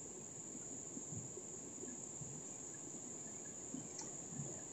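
Faint, steady high-pitched drone of insects in tropical forest, one unbroken shrill tone.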